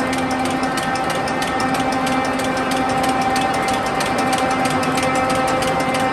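Huazhu 1226 automatic flexo printing slotting machine for corrugated cartons running at high speed: a steady mechanical hum with a few held tones under a fast, even clatter of clicks.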